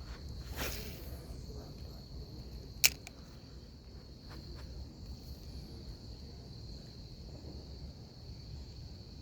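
A fishing rod whooshing through a cast about half a second in, then one sharp click about three seconds in, over a steady high-pitched insect drone.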